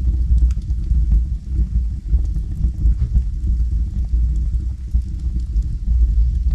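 Logs burning in a fireplace, with a steady low rumble as the loudest part and small, faint crackles and pops scattered through it.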